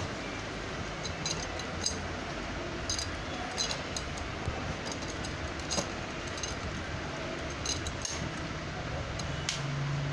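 Scattered light metallic clicks and clinks, about eight spread irregularly, as a chrome handlebar stem is handled and slid into a tricycle's steering tube, over a steady background hiss.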